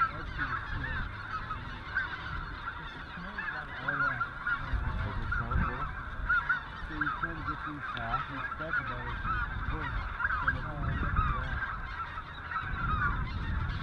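A large flock of snow geese calling, a dense steady chorus of short high yelping honks overlapping one another. Bouts of low rumble come and go underneath.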